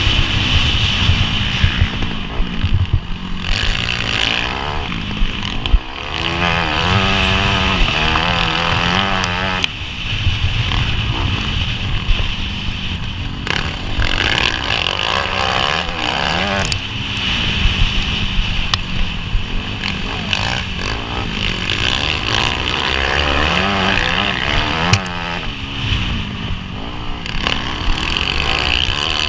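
Off-road motorcycle engine at race pace heard from on board, its revs rising and falling again and again through gear changes and corners, with a sharp knock about six seconds in.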